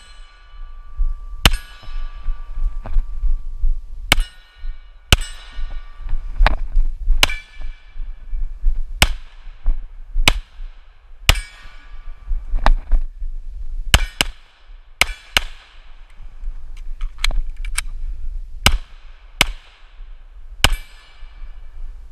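HK USP Tactical 9mm pistol fired about twenty times at an irregular pace, single shots and quick pairs, many followed by the ringing clang of a hit steel target. A low rumble runs underneath.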